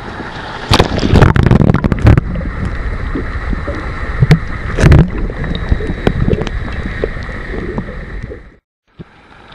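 Water splashing and gurgling around a small fishing boat, with several loud knocks and clatters about a second in and again around four to five seconds in.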